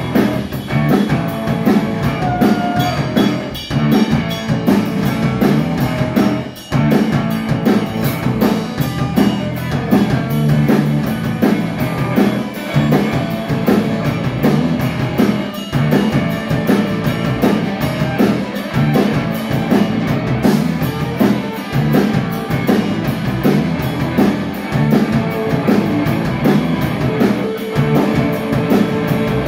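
Live rock band playing: electric guitar over a drum kit, with a brief break about six and a half seconds in.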